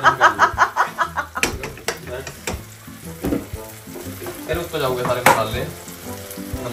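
Red sauce of garlic, capsicum and tomato puree sizzling in a frying pan as it is stirred.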